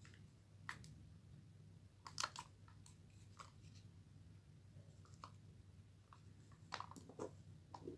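Faint, scattered clicks and crackles of a plastic spool of clear beading cord being handled and turned in the fingers, a small cluster about two seconds in and several more near the end, over a low steady hum.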